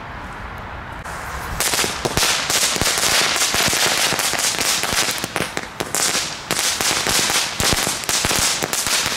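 A pack of Category 1 strobe firecrackers ('flitsers') going off on the ground. A short rising hiss is followed, about a second and a half in, by dense, irregular sharp crackling pops that run on without a break.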